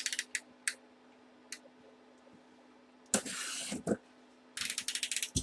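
A cardboard box and its packaging being opened and handled. A few sharp clicks come at the start, then a short scraping rush about three seconds in, and a quick run of clicks near the end.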